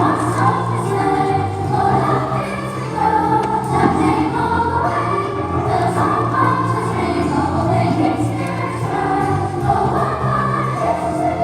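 A choir singing a slow piece in held, sustained chords.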